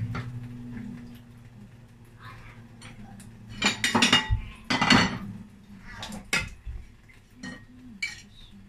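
Metal serving spoon scraping and clinking against a metal pot and a plate as boiled rice is served out: a few short clattering bursts about four and five seconds in, then lighter knocks.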